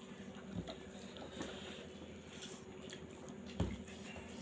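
Fingers mixing rice and mushroom-and-pea gravy on a steel plate: soft wet squishing with small clicks, and a dull thump about three and a half seconds in.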